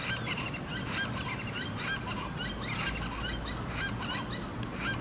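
Plain chachalacas calling: a chorus of many short, repeated calls overlapping one another.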